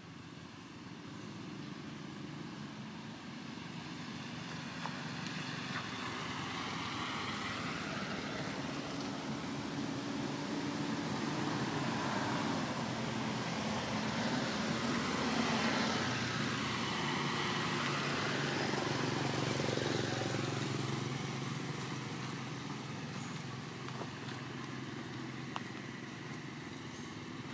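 Engine noise of a passing vehicle, growing louder over about fifteen seconds and then fading away.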